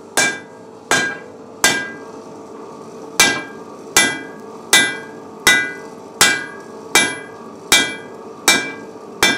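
Blacksmith's hand hammer striking a red-hot iron bar on an anvil, about one blow every three quarters of a second, each with a brief metallic ring. There is a pause of about a second and a half after the first three blows.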